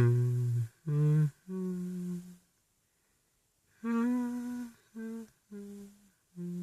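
A man humming a slow tune in separate held notes, about seven of them, with a longer pause near the middle.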